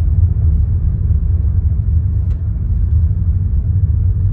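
Car driving slowly along a gravel driveway: a steady low rumble of tyres and engine, with one faint tick about two seconds in.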